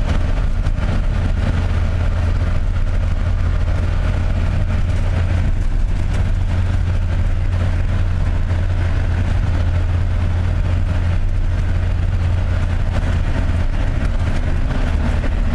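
Motor vehicle driving at a steady pace: engine and road noise as an even, low drone.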